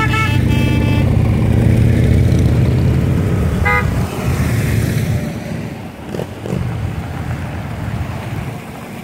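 A group of motorcycles running past in a low rumble, with a horn sounding at the start and a short horn beep nearly four seconds in; the engine noise fades away over the second half as the bikes ride off.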